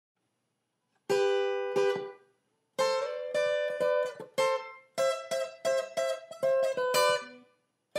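Short intro music of strummed chords on a plucked string instrument. It starts about a second in, pauses briefly twice, and dies away shortly before the end.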